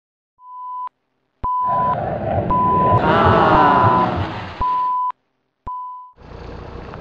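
Intro sound effect of an old television: a short steady test-tone beep repeating about once a second, six times. Under the middle beeps, a burst of loud static with sweeping, whistling tuning tones runs for about three seconds. About six seconds in, a steady running noise takes over.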